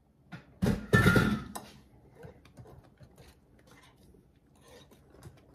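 Wire whisk clinking and scraping against a glass mixing bowl as thick cake batter is stirred, with a louder clatter of the whisk or glassware about a second in, then lighter repeated clicks.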